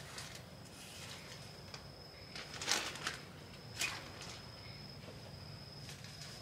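A steady, high-pitched insect drone, with two short louder noises a little before and after the three-second mark.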